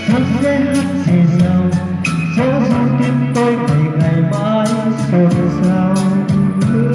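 Music from a Vietnamese pop ballad: a sustained melody over a steady percussion beat.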